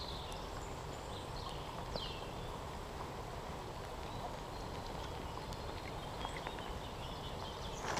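Steady outdoor rush of a river, with a few faint chirps falling in pitch in the first two seconds.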